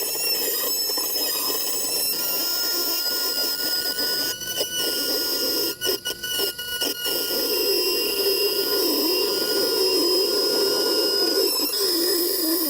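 Dremel rotary cutout tool running at high speed, a steady high whine with a hiss of cutting as it routes out a cutout in a wall panel. The sound drops out briefly a few times around the middle and again near the end.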